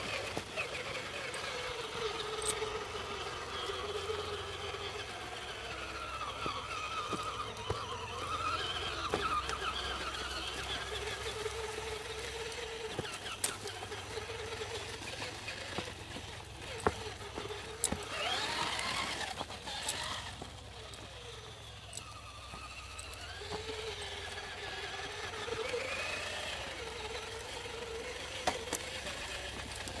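Axial AX10 Deadbolt RC rock crawler's 35-turn electric motor and gears whining as it crawls, the pitch wavering up and down with the throttle and sweeping sharply upward about two-thirds of the way through. Occasional short clicks and knocks come from the truck working over the rocks.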